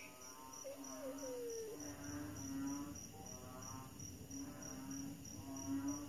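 Night chorus of crickets chirping in a steady pulse, about three chirps a second, with frogs calling in repeated bursts underneath.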